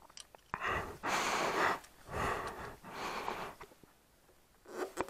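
A person breathing heavily close to the microphone, about four breaths in a row.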